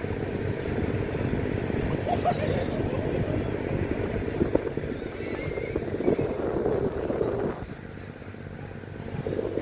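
Ferry's engine running with a steady drone under wind and water noise on the open deck. The sound drops quieter about seven and a half seconds in and comes back up near the end.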